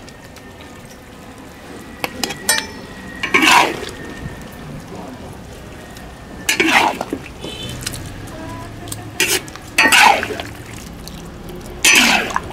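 Metal ladle scraping and knocking against a large iron wok, about five scoops, as stewed pumpkin is dished out, with a few small clicks before them.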